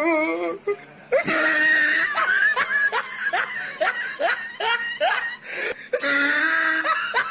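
Laughter, going into a run of short ha-ha bursts about two or three a second.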